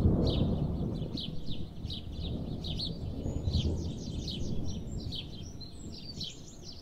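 Birds chirping in quick, short repeated calls, over a low rumble that is loudest at the start and fades over the first couple of seconds.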